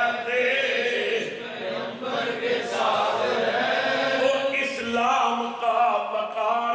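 Devotional chanting by men's voices, melodic and drawn out.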